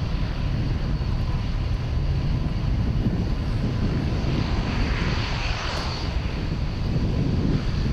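Boeing 737 MAX 9 airliner's CFM LEAP-1B turbofan engines heard from the ground during a banking display pass. A steady low rumble runs throughout, and a hissing whine and roar swells about four to six seconds in as the jet turns toward the listener.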